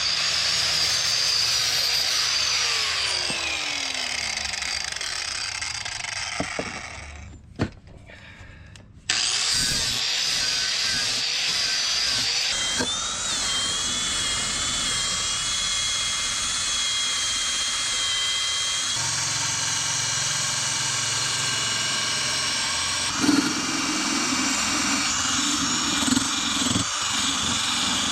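Handheld power tool running steadily with a whine, working against metal. It stops for about a second and a half around seven seconds in, then starts up again and runs on.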